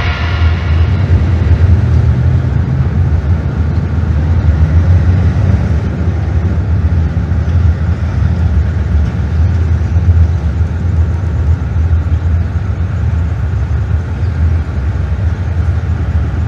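Experimental noise track: a loud, steady, dense low rumble with a noisy hiss above it and no clear beat or melody.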